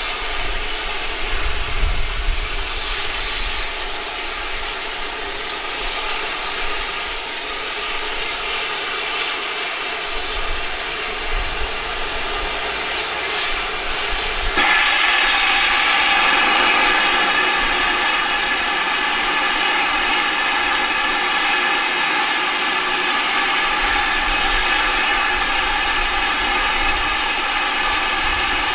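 Standing steam locomotive hissing steam steadily. About halfway through, a louder, higher hiss of steam starts abruptly and keeps going.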